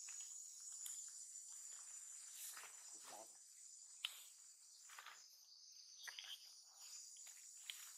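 Faint, steady high-pitched insect chirring, with scattered soft rustles and small clicks, the sharpest just after four seconds.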